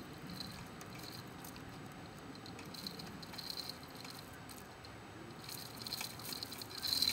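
Faint scattered clicks and scrapes as a headstone hanging from a chain fall is rocked into place on its epoxied base, squeezing the epoxy out.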